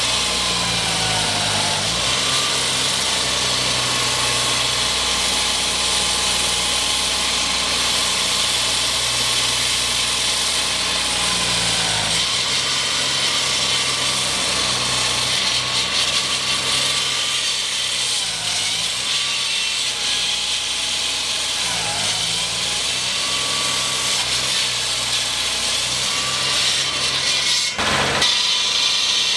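Construction machinery running steadily: a continuous loud hiss with an engine-like hum underneath whose pitch dips a few times, and a brief louder burst near the end.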